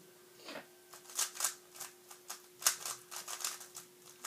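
Plastic 3x3 speedcube being turned by hand, its layers clacking in quick, irregular runs of clicks.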